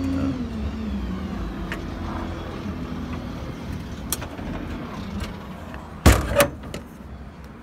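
The F-550's 6.7 Power Stroke diesel engine running, its drone dropping in pitch just after the start and then running steadier and lower. About six seconds in, two loud bangs close together sound as a service-body compartment door is shut.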